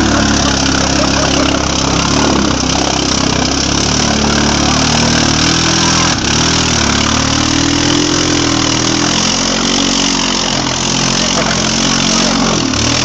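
Yamaha Grizzly 700 ATV's single-cylinder engine revving up and down repeatedly as the quad works through deep mud, over a steady rushing noise.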